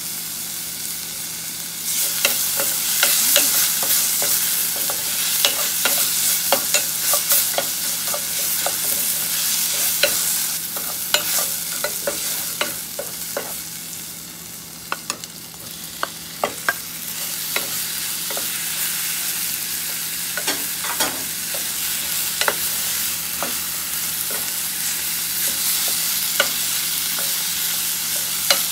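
Pounded galangal, lemongrass, kaffir lime leaf and chilli paste sizzling in oil in a stainless steel pot, with a wooden spoon scraping and clicking against the pot as it is stirred. The sizzle gets louder about two seconds in, once more oil has gone in. It drops briefly around halfway as raw chicken pieces are tipped in, then carries on under the stirring.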